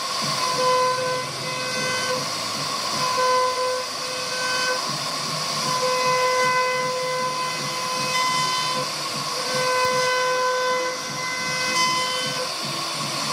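CNC router carving wood: the spindle and cutter make a steady hissing noise, while a pitched whine comes and goes in short stretches as the machine moves.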